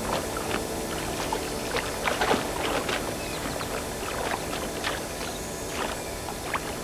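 Water splashing and sloshing in irregular bursts, as crocodiles move and thrash in shallow water.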